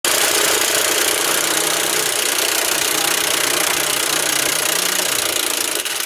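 Corded handheld power tool running steadily under a silage harvester's chassis, a loud even whirring hiss. It cuts off just before the end.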